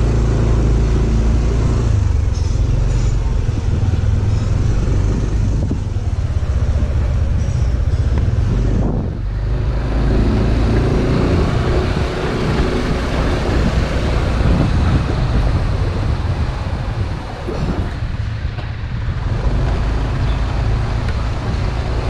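Motorcycle engine running under way, mixed with wind and road noise on the microphone. The sound dips briefly about nine seconds in.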